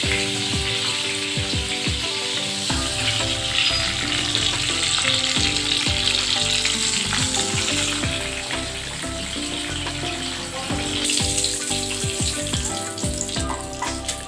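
Marinated fish pieces sizzling steadily as they shallow-fry in hot groundnut oil in a pan, with background music playing along.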